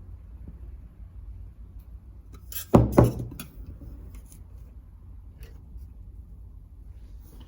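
Two sharp knocks in quick succession about three seconds in, with a few lighter clicks around them, over a low steady hum.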